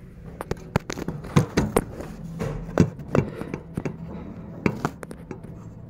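Handling noise from a phone camera being moved and set in place: a string of irregular knocks, taps and rubs.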